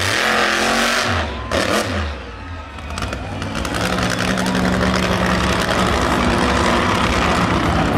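Monster truck engine running loud and revving, easing off briefly about two seconds in, then picking up again.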